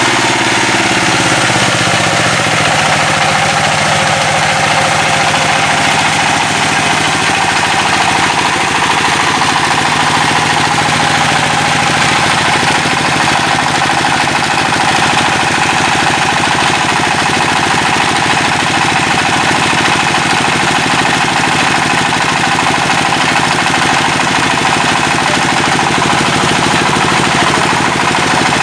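Single-cylinder diesel engine of a generator set running with a steady knocking beat, picking up speed in the first second or two and then holding an even pace.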